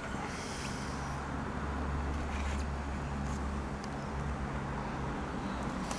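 Low rumble of a motor vehicle's engine running, with a steady hum that swells in the middle and fades out about four to five seconds in, plus a few faint clicks.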